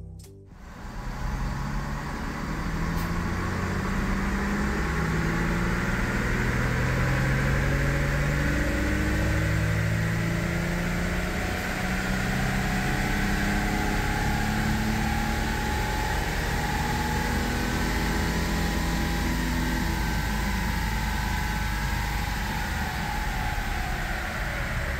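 Stock 3.4-litre 5VZ-FE V6 of a 2004 Toyota Tacoma running under load on a chassis dynamometer for a baseline power run. Its pitch climbs steadily for most of the run, then falls away over the last few seconds.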